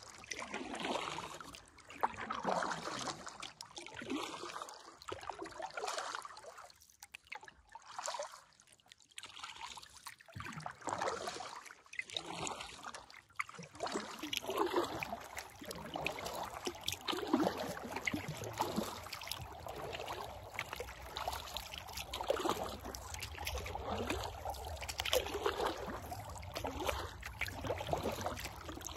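Kayak paddle strokes: water splashing and trickling off the blades, one stroke every second or two, with a short quieter lull about a third of the way in.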